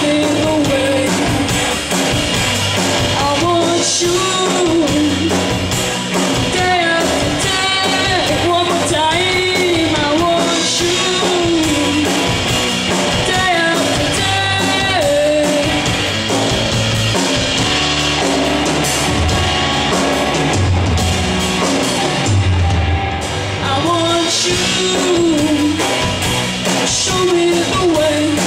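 Live rock band: a boy singing over his electric guitar, with a drum kit keeping the beat.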